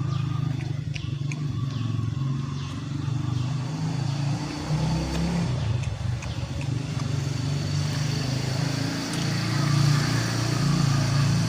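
An engine running steadily with a low, even hum, with light clicks and clatter over it.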